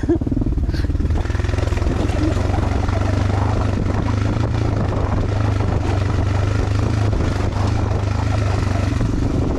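Motorcycle engine running steadily while riding, with a rushing haze of wind and road noise over it.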